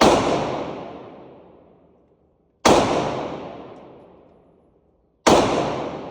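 Three gunshots, each followed by a long fading echo: one right at the start, one about two and a half seconds later, and one near the end.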